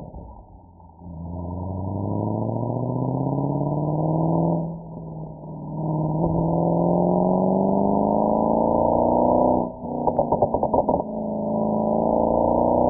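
Mercedes-AMG SL63's V8 exhaust pulling up through the gears, its pitch rising steadily and dropping at a shift about five seconds in before climbing again. Near ten seconds it lifts off briefly with a short burst of rapid crackles, then pulls up in pitch once more.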